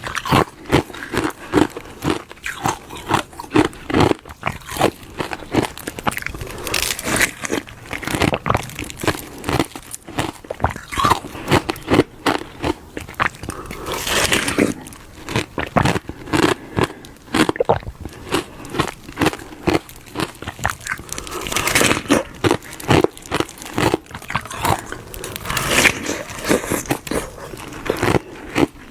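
Close-up biting and chewing of hard ice frozen in the shape of a glove: crisp crunches and cracks one after another, with a few louder snapping bites.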